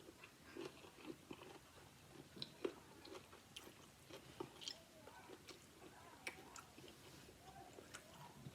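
A person chewing food: faint, irregular wet mouth clicks and smacks, several a second.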